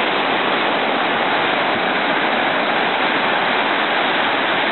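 Steady rushing noise of surf washing onto a sandy beach.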